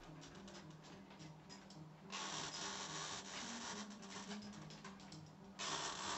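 Caulking gun being worked to squeeze out a bead of adhesive: scattered light clicks, with two rasping stretches of about a second each, about two seconds in and near the end, over a faint steady hum.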